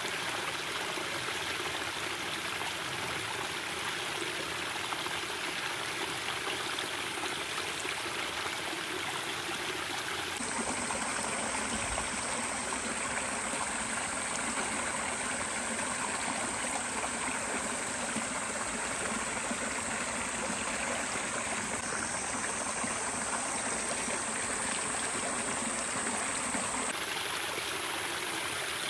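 Steady rushing of a stream's running water.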